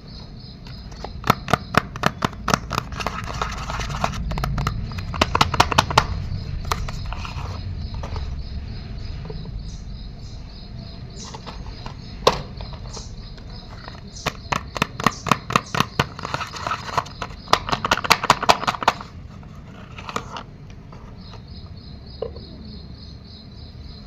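Crisp crackling and crinkling from soap bars and their wrapping being handled, in two long runs of rapid clicks with scattered single crackles between. Crickets chirp steadily underneath.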